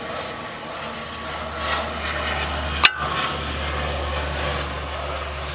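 Steady low background rumble with a faint hiss, and one sharp click about three seconds in.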